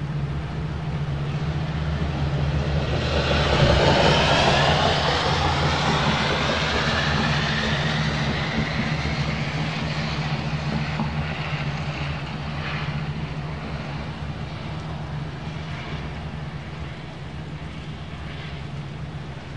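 A distant engine passing by, swelling to its loudest about four seconds in and then fading slowly, over a steady low hum.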